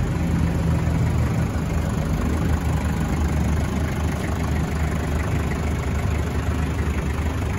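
An engine idling steadily, a low, even hum with no change in speed.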